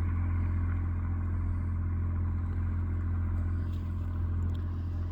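A vehicle engine running steadily at an even pitch, with no change in speed.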